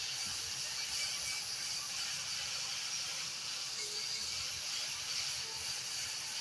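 Angle grinder with a wire brush wheel scouring a wooden slab, a steady hissing scrape.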